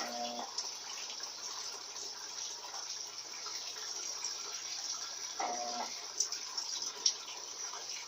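Electrolux LT12B top-loading washing machine filling with water: a steady rush of water pouring into the tub. Two short low hums cut in, one at the start and one about five and a half seconds in.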